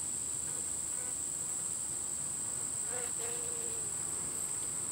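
Steady high-pitched chorus of singing insects, with a faint short buzz about three seconds in.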